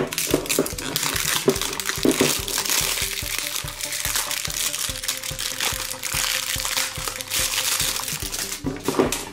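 Clear plastic packaging crinkling steadily as it is pulled off a toy by hand, over soft background music.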